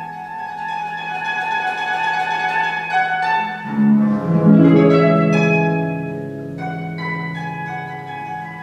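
Concert harp played solo: plucked notes ring over a held low note, then about three and a half seconds in a louder group of low notes is struck and rings out, fading over the next couple of seconds.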